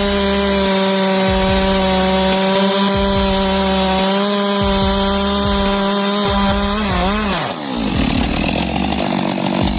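STIHL MS 462 two-stroke chainsaw running at steady high revs while cutting through a large log. About seven seconds in the pitch wavers and the full-throttle sound stops, and the engine drops back fainter and lower.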